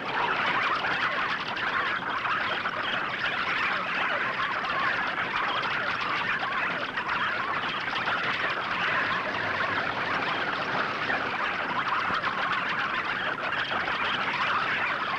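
A swarm of bats streaming out of a cave, heard as a dense, steady, high-pitched mass of squeaking chatter.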